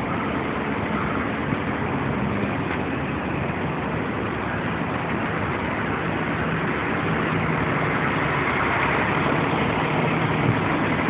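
A ship's engines running steadily: a faint low hum under an even rushing noise, a little louder in the second half.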